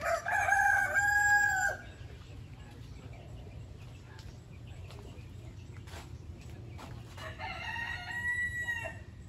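Rooster crowing twice: a loud, drawn-out crow right at the start and a fainter second crow near the end, over a steady low hum.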